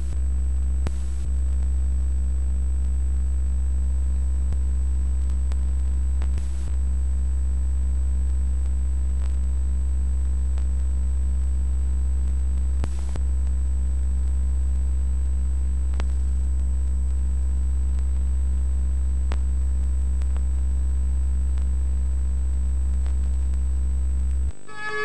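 Loud steady low electrical hum on the VHS tape's audio track, with fainter overtones and a faint high steady whine, broken by brief dropouts about a second, six and a half and thirteen seconds in. Near the end the hum cuts off and synthesizer music begins.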